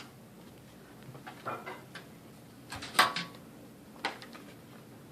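Handling noises: a few scattered clicks and knocks, the loudest one about three seconds in.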